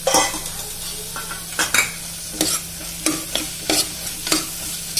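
A spatula scrapes and stirs through frying onion-tomato masala in a pressure cooker, with repeated uneven scrapes over a steady sizzle. The masala is being fried with its freshly added chilli powder and biryani masala until their raw smell is cooked off.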